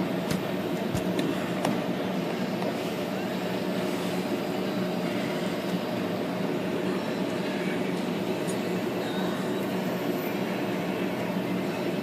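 A steady machine hum with a few light clicks in the first two seconds.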